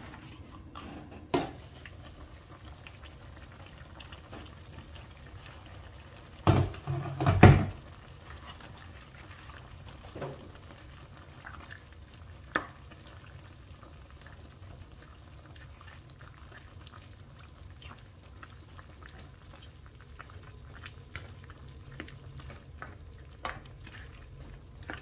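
Chicken and pineapple in sauce simmering in a pot, a steady low bubbling sizzle with faint crackles. A few knocks stand out, the loudest two about seven seconds in.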